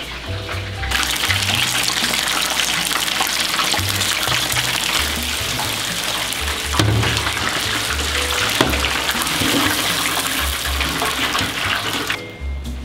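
Beer-battered chicken deep-frying in a commercial fryer's hot oil, a dense steady sizzle that starts about a second in and drops away near the end, with a couple of light knocks around the middle. Background music plays under it.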